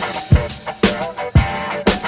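Background music with a steady drum beat, a bass drum about twice a second with hi-hat ticks between.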